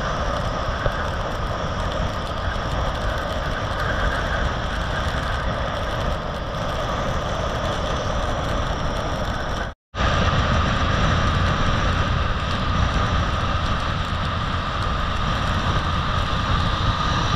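Motorcycle riding at highway speed: steady wind rush on the microphone over engine and tyre noise. The sound cuts out for an instant about ten seconds in and comes back with a steadier hum.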